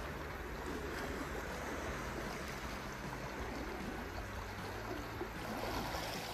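Calm sea water gently lapping and washing against shoreline rocks, a steady soft wash.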